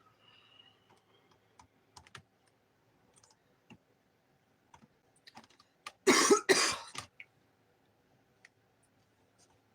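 A person coughing: two harsh coughs in quick succession about six seconds in, after a stretch of faint scattered clicks.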